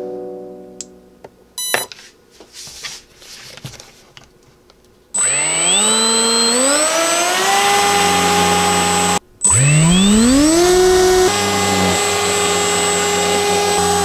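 Electric brushless motor of an RC hovercraft's lift fan spinning up with a rising whine and running steadily, inflating the skirt, with a thin high whine above it. It cuts out for an instant after a few seconds and spins up again.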